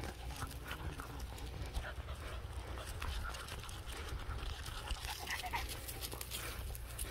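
A dog panting steadily on a walk, with light, irregular crunching of footsteps on a gravel road.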